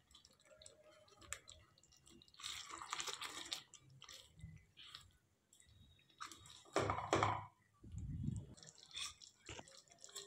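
Faint wet stirring of chicken pieces in thick gravy with a silicone spatula in a nonstick kadai, coming in short separate bursts as the spatula moves through.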